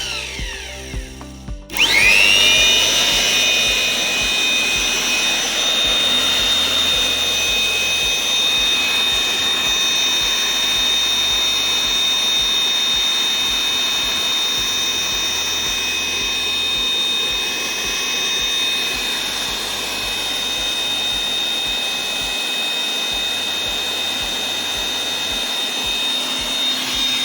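Electric air blower feeding the forge slows and cuts out, then starts again about two seconds in, its whine rising and settling into a steady high pitch that holds. Background music plays underneath.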